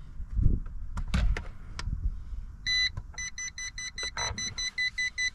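Clicks and knocks of handling, then the RC helicopter's electronic beeper: one longer beep followed by a rapid string of short identical beeps, about four a second. The owner puts the beeping down to the throttle stick having been left up.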